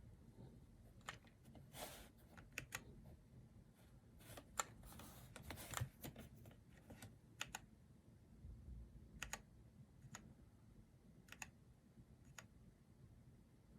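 Faint, irregular clicks and clacks from a GamaKay K61 mechanical keyboard's keys and plastic keycaps. They come in small clusters with pauses between, not steady typing.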